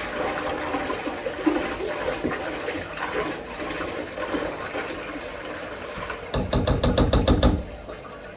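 Toilet flushing, the water rushing steadily and slowly fading over several seconds. About six seconds in, a toilet brush makes a quick run of about ten rapid strokes in the bowl, the loudest sound here.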